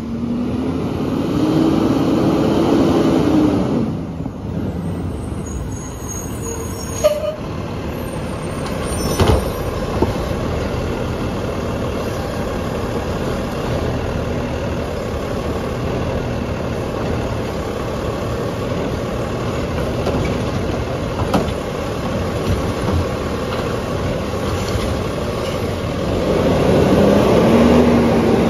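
Autocar garbage truck with a McNeilus automated side-loader body, its diesel engine running close by. The engine revs up and settles back in the first few seconds and again near the end, and idles steadily in between. A few sharp knocks come through along the way.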